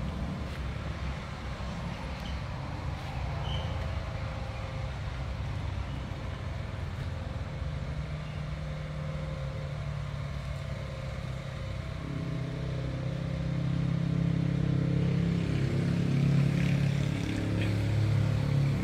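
Engine running steadily, a low hum that grows louder and fuller about two-thirds of the way through.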